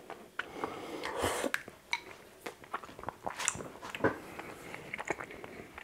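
A person slurping creamy noodle soup from a ceramic Chinese soup spoon, with one long slurp in the first second and a half. Chewing follows, with several light clinks of the spoon against a ceramic bowl.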